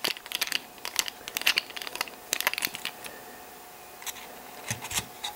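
Small clicks and rattles of a screwdriver working on the plastic truck of a model railroad freight car as the truck is unscrewed and pulled off, thickest over the first two to three seconds; then quieter, with a couple of soft knocks near the end.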